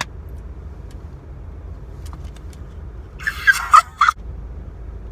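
A woman's short, loud, high excited squeal about three seconds in, over a steady low rumble inside a car. Sharp plastic clicks of a CD jewel case being handled come at the start and just after the squeal.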